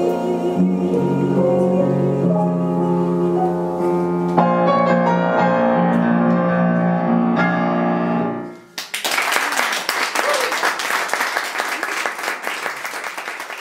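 Piano playing the closing bars of a ballad in sustained chords, with a woman's voice trailing off at the start; the last chord dies away about eight and a half seconds in. Applause from a small audience then breaks out and carries on, thinning near the end.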